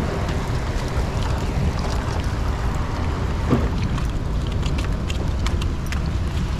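Wind buffeting the microphone, a steady rumbling noise, with scattered light ticks and taps through the second half.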